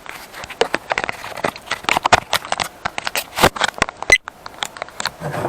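Thin plastic laptop case parts being handled and moved by hand during disassembly: an irregular run of clicks, knocks and rustles, with two sharper knocks about three and a half and four seconds in.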